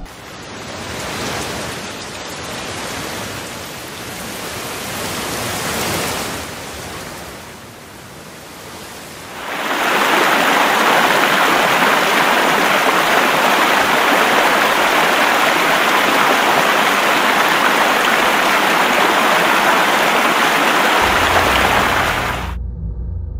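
Heavy rain hissing, swelling and fading, then from about ten seconds in the loud, steady rush of water pouring down a dam spillway, which cuts off suddenly near the end.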